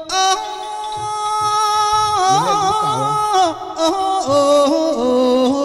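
A likay singer draws out a long, unaccompanied sung 'oh'. The held notes slide from pitch to pitch, with a wavering run in the middle.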